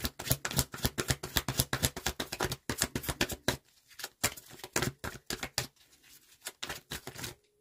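A deck of reading cards being shuffled by hand: a rapid run of card clicks and flicks, thinning out to scattered clicks after about three and a half seconds.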